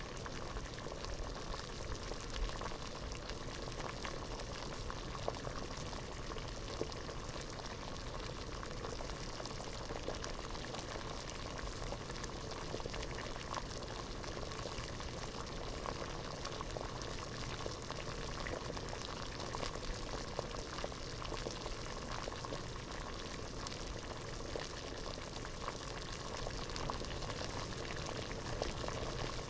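Water boiling hard in a pot: a steady bubbling with many small pops and crackles.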